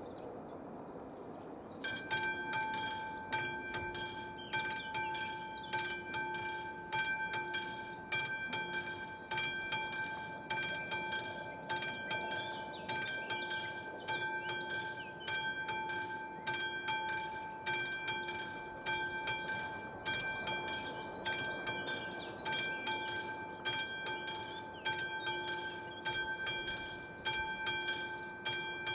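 Classic striking bell of an AŽD 71 level-crossing warning signal starts ringing about two seconds in, with fast, even, continuous strokes and a clear ringing tone. The crossing has been activated, warning of an approaching train.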